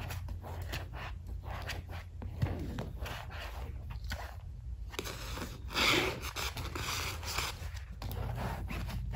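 Cat licking and clawing at a fabric couch cushion close to the microphone: a quick, irregular run of soft rasping scrapes, with one louder, longer scrape about six seconds in.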